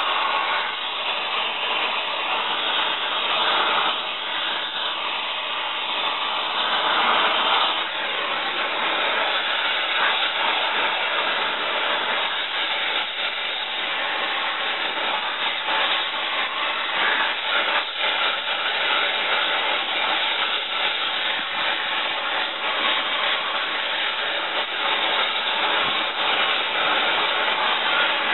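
Oxy-acetylene torch with a rosebud heating tip burning with a steady rushing hiss, heating rusted bolts to free them.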